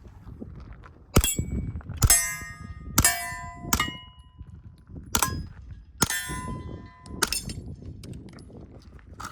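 Steel plate targets hit by gunfire, about seven shots in six seconds, each hit ringing out with a clang. The shots come as a transition drill: the big plates first, then a switch to the pistol.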